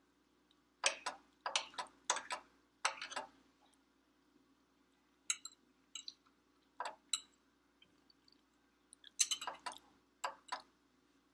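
Close-miked mouth sounds of someone chewing soft pasta: wet clicks and smacks coming in short clusters, over a faint steady hum.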